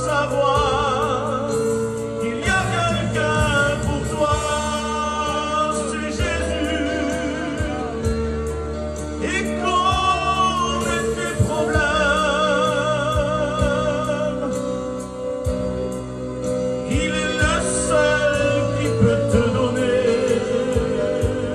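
A French Christian hymn being sung: long held melody notes with wide vibrato over steady sustained backing chords.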